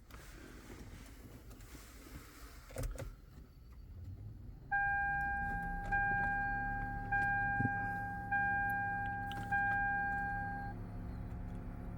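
2009 Lexus GS350 dashboard warning chime sounding five times, about a second apart, over a steady low hum, after a few faint clicks. There is no cranking: the car is failing to crank or start with a brake malfunction warning.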